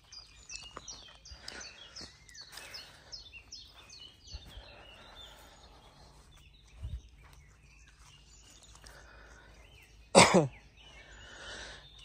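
Small birds chirping faintly, then about ten seconds in a person sneezes once, loudly.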